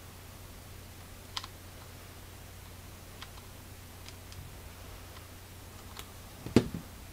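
Light, scattered clicks and taps from handling a hot glue gun while gluing a doll's boot sole, then one louder knock about six and a half seconds in as the glue gun is set down on the cutting mat.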